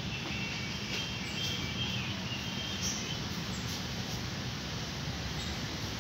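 Faint, short, high bird chirps over a steady low background rumble, the chirps mostly in the first half.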